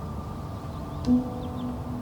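Background music of soft sustained notes, with a new note coming in about a second in.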